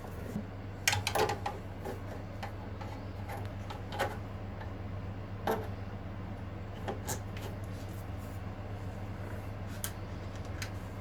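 Scattered light clicks and metal knocks of hand work on a small engine's parts, a few seconds apart, over a steady low hum.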